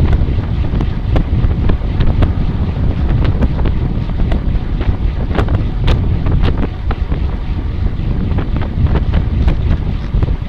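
Heavy wind buffeting the microphone, a dense low rumble, with scattered sharp clicks and knocks throughout.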